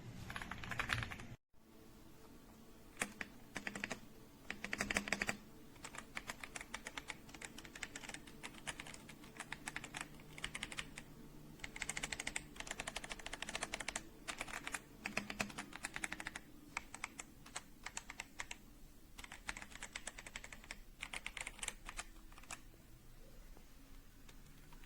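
AJAZZ AK820 75% mechanical keyboard being typed on: runs of rapid keystroke clicks in bursts with short pauses, starting about three seconds in and stopping shortly before the end.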